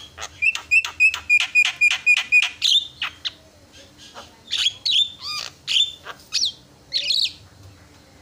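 Javan myna calling: a fast run of about ten sharp, clipped notes at about four a second, then after a pause a burst of varied, bending whistles mixed with rougher notes.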